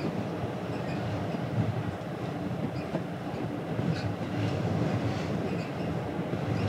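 Steady low rumble and drone of a ferry underway, heard on its open deck, with a faint steady hum and a few faint light ticks.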